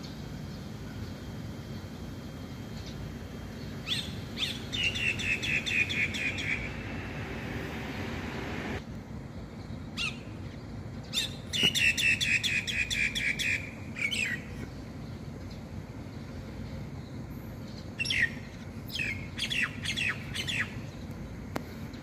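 A starling (jalak) calling: two quick runs of repeated notes, about six a second, the first about four seconds in and the second about eleven seconds in, then a few sharp separate notes near the end.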